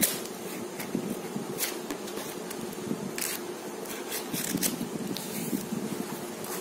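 Plastic wrapping on a book being slit with a utility knife and handled: scattered crackles and scrapes, the sharpest at the start, over a steady low hum.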